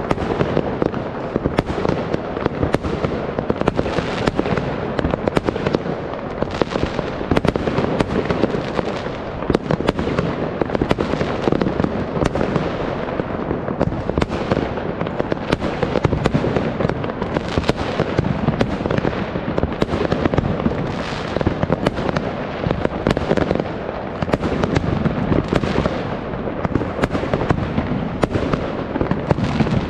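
Fireworks going off in a dense, unbroken barrage: many bangs in quick succession over a continuous crackle, with no let-up.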